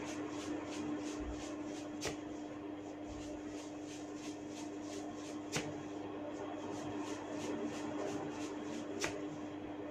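Hair cracking: tufts of hair tugged one after another, giving a run of small dry clicks about two or three a second, with three louder cracks about two, five and a half and nine seconds in. A steady low hum lies underneath.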